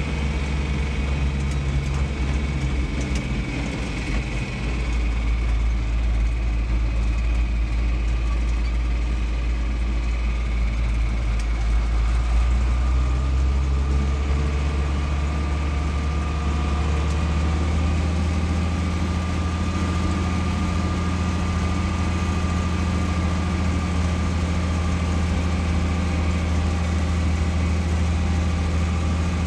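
Farm tractor's engine running steadily as it drives along, heard from inside the cab. It steps up louder about four seconds in, then holds a steady drone, with a faint high whine from about halfway.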